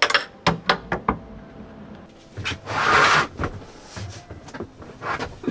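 Knocks and clatter of things being handled at a shelf, several sharp clicks in the first second and a half, then a louder rustling swell about three seconds in.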